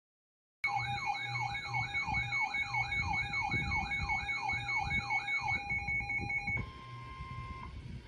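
Electronic siren-style emergency alert tone sweeping rapidly up and down, about two to three sweeps a second, over a steady higher tone; near the end the sweeping stops and a single steady tone sounds briefly.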